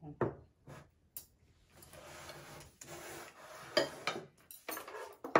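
Tableware sounds at a meal: a few sharp clicks of dishes and chopsticks, and a stretch of rubbing, scraping noise in the middle, with more clicks near the end.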